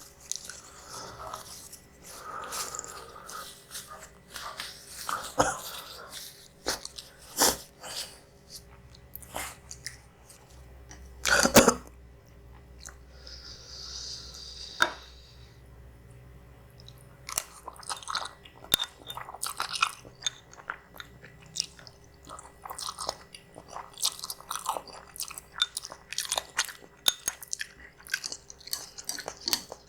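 Close-miked mouth sounds of a person eating spicy instant noodles: chewing with wet smacking clicks, a loud burst about eleven seconds in, and a short hiss a couple of seconds later.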